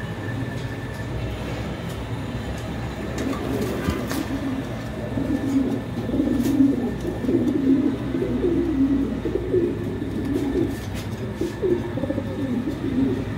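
Lahore fancy pigeons cooing in repeated low phrases, louder from about five seconds in, over a steady low background hum.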